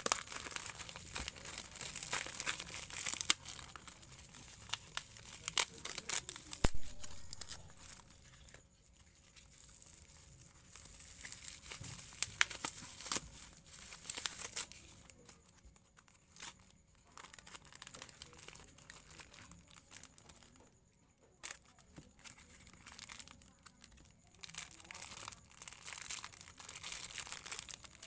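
Plastic parcel packaging crinkling and tearing as a package is unwrapped by hand, in irregular rustles and sharp crackles with a couple of quieter pauses along the way.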